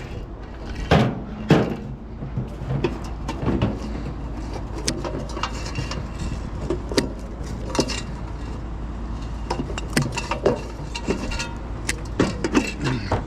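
Scrap metal pieces being handled and sorted: two loud knocks about a second in, then scattered small clinks and clicks over a low steady rumble.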